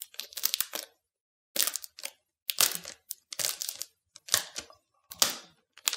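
Protective plastic film being peeled off an iMac's glass screen, crackling in short bursts about once a second as it is pulled away.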